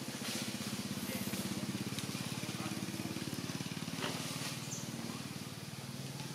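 A small engine running steadily in the background, a low hum with a fast even pulse, with one sharp click about four seconds in.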